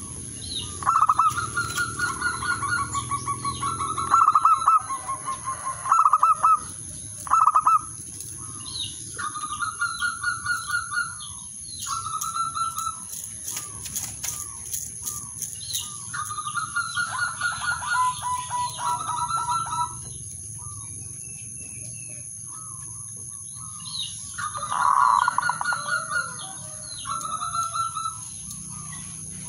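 Male zebra dove cooing: repeated phrases of fast, rippling trilled coos, some ending on a lower held note, with pauses between phrases. A brief flutter of wings against the cage comes around the middle.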